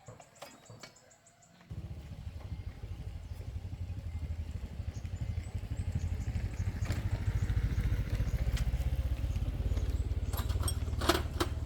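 An engine starts up about two seconds in and runs with a low, rapid putter, getting somewhat louder. A few sharp knocks come near the end.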